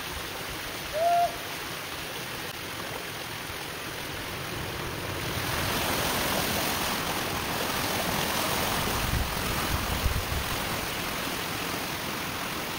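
Steady rush of ditch water draining through a freshly unclogged culvert pipe, growing louder about five seconds in. About a second in, a single short, clear call note stands out above the water.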